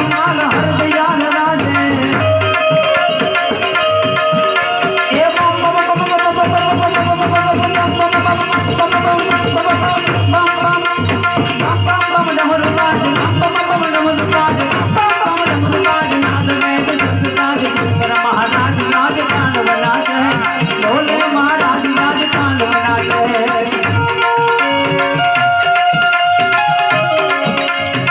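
Instrumental interlude of Indian devotional music: a sustained melody line over a steady, regular hand-drum beat.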